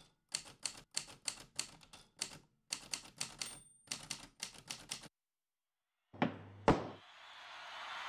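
Typewriter keys striking one after another, about fifteen keystrokes in five seconds, then two heavier thumps half a second apart. A steady hiss fades up near the end.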